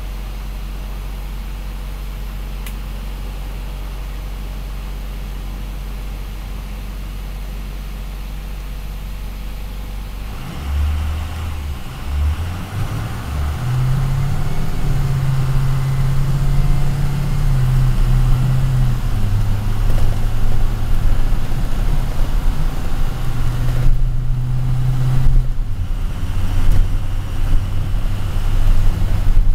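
Bus engine heard from inside the cabin: a steady low idle at first, then about ten seconds in the bus pulls away and accelerates, getting louder. The engine note climbs and drops back twice as it shifts up through the gears.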